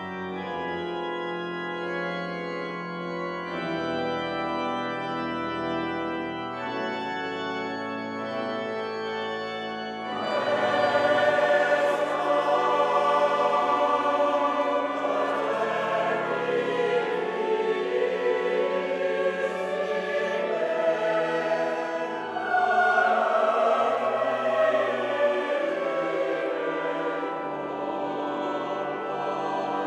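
Church pipe organ playing sustained chords alone, then about ten seconds in a large mixed choir comes in singing over the organ, and the music grows louder.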